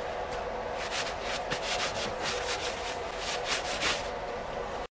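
A wad of paper towel rubbed over the steel head of a vintage Brades Criterion axe in quick repeated wiping strokes, about two a second, cutting off suddenly near the end.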